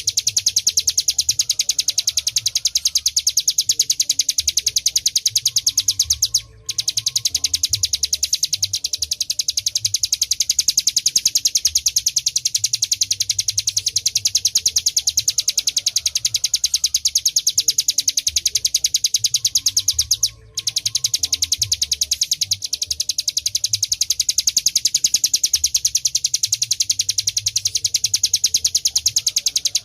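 Ciblek gunung, a prinia, singing a very fast, unbroken trill of high ticking notes. The trill breaks off twice for a moment, about six and twenty seconds in.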